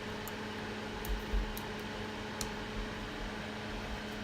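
Steady whir and hum of a workbench fan, with a few faint light taps about a second in.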